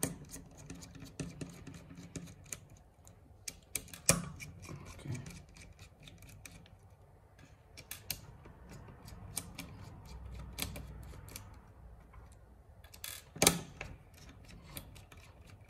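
Small screwdriver clicking and ticking on the heatsink screws of a MacBook Pro logic board as they are undone, with a louder knock about four seconds in and another near the end.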